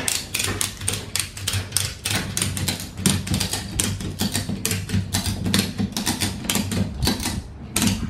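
Ratchet buckle of a ShockStrap ratchet tie-down strap being cranked back and forth, giving a rapid run of sharp clicks as the webbing is cinched tight.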